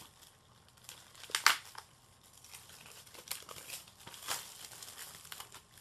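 Plastic Blu-ray case being handled and opened: crinkly plastic rustling with a few sharp clicks, the loudest about one and a half seconds in and others around three and four seconds in.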